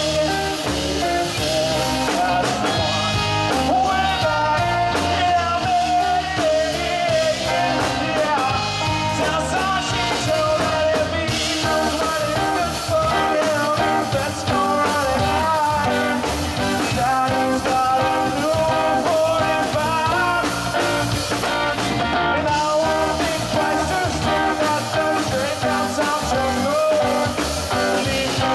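A live rock band playing: electric guitars, bass guitar and a Pearl drum kit through a PA, with a man singing lead. The music runs on without a break.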